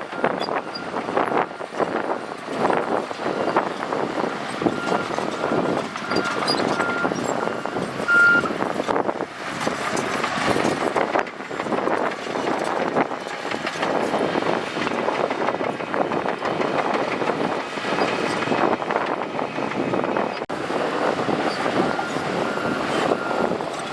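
Shantui bulldozer's diesel engine working hard with steady clatter from the machinery while it pushes gravel through mud. A reversing alarm beeps repeatedly for a few seconds about five seconds in, and again near the end.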